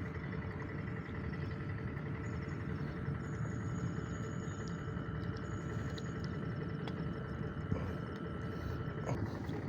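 Steady low rumble of a distant engine, with a few faint high steady tones above it.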